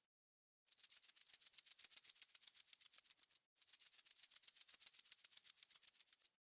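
Fast, dry rattling like a shaker, about a dozen clicks a second, in two runs of nearly three seconds each with short breaks before and between them.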